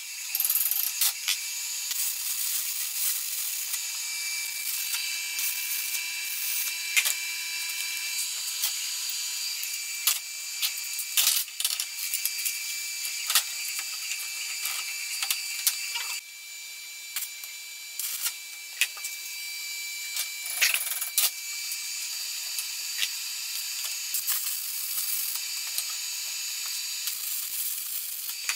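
Steel parts clicking and knocking against a bench vise and each other as they are handled, over a steady high hiss.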